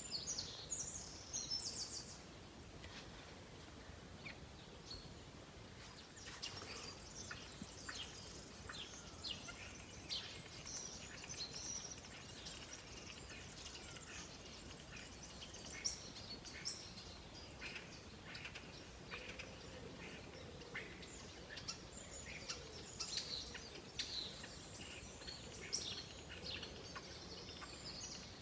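Wild birds chirping and calling: many short, high calls scattered throughout over a faint background hush.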